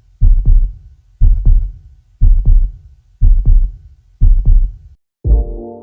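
Heartbeat sound effect: a deep double thump, lub-dub, about once a second, five times. Near the end the beats stop and a held chord of music comes in.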